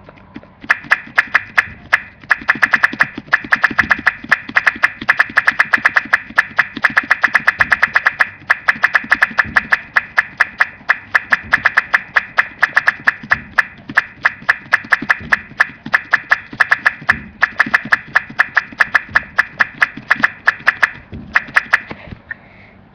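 A child making a fast run of sharp popping clicks with his mouth, a 'mini firecracking' noise, several clicks a second. The clicks stop about a second before the end.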